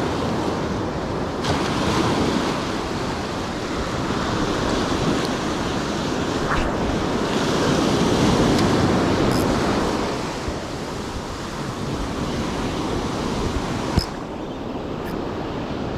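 Ocean surf breaking and washing onto a rocky shore, swelling loudest about halfway through and then easing, with wind on the microphone. A single sharp click near the end.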